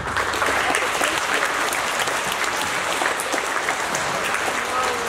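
Audience applauding, a steady crackle of many hands clapping that starts suddenly and holds throughout.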